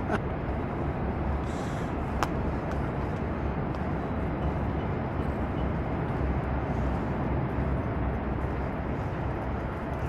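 Steady low rumble of outdoor city background noise, with a faint click about two seconds in.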